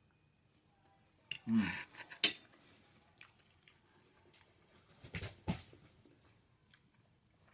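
Cutlery on a plate while eating: a short scrape about a second and a half in, then a sharp clink, and two more clinks around five seconds in.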